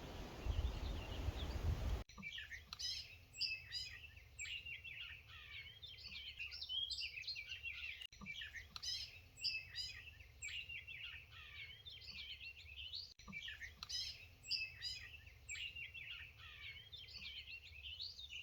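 Songbirds chirping and singing together, many overlapping quick chirps and warbles. For the first two seconds a rushing noise covers them, then it stops abruptly.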